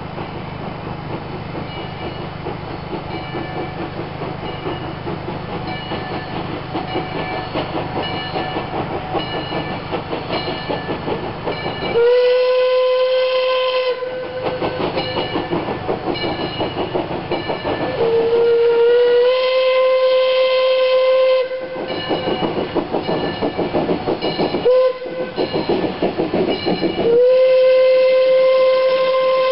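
Steam locomotive approaching with rhythmic exhaust chuffs, then sounding its steam whistle in two long blasts, one short and one long. This is the standard grade-crossing warning signal.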